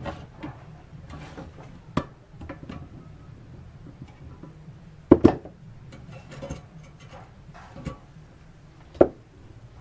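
Handling clatter as a coin-box frame and pliers are worked by hand: scattered knocks and clicks over light rustling, the loudest a quick double knock about five seconds in and a single one near the end.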